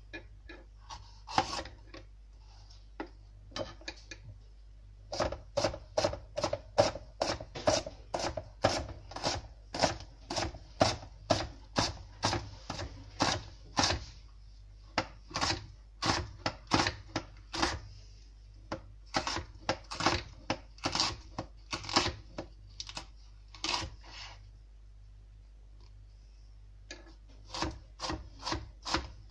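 Knife chopping a red bell pepper on a cutting board: a long run of sharp taps, about two or three a second, broken by a short pause a few seconds in and another near the end.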